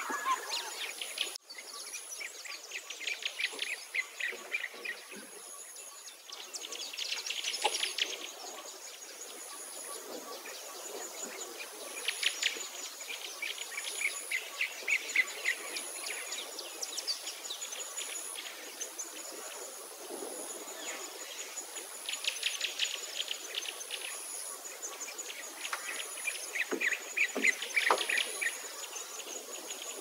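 Birds chirping and trilling in irregular bursts over a steady background, with a faint high insect-like buzz pulsing about once a second.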